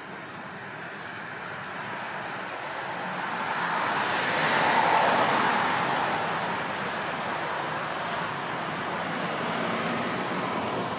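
Road traffic noise, with a vehicle passing that grows louder to a peak about halfway through and then fades.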